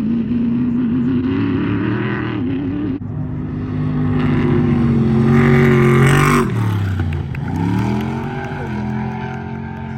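Off-road race vehicle engines at high revs. For the first three seconds one holds a steady, wavering note. Then a louder one revs up, its pitch falls steeply about six and a half seconds in, and it climbs again as the engine picks back up.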